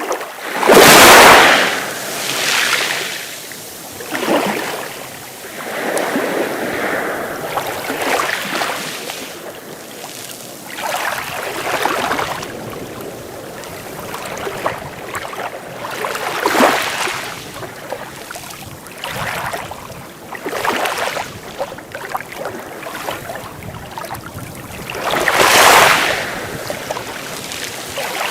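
Sea waves breaking and washing in, in uneven surges every few seconds, the loudest about a second in and again near the end.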